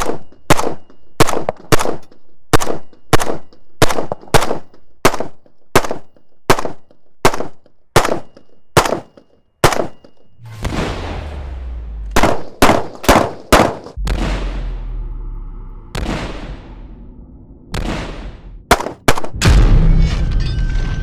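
Vektor CR-21 bullpup rifle, a semi-auto-only build on a modified R4, firing rapid single shots. They come evenly at roughly one and a half a second for about ten seconds, then as scattered shots and a few quick strings with longer echoing tails.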